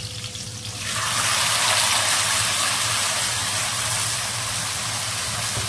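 Freshly washed, still-wet manathakkali (black nightshade) berries tipped into hot oil in a kadai, bursting into a sudden loud sizzle about a second in that then holds steady.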